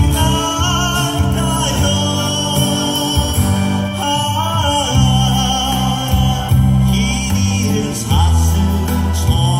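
Music: a sung melody with vibrato over a steady backing track with bass.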